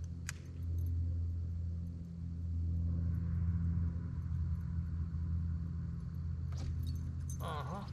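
Steady low hum of a boat motor, with a brief higher, wavering sound near the end.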